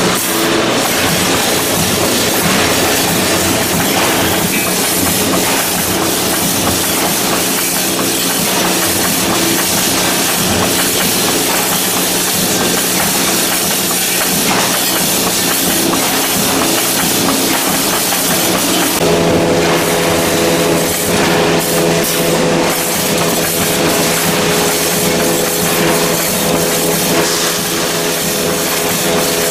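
Wire mesh welding machine running continuously: a steady mechanical clatter and hiss with a constant hum whose tone changes about two-thirds of the way through.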